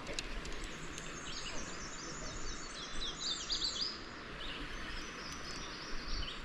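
A songbird sings a run of quick, high chirps over the steady rush of creek water.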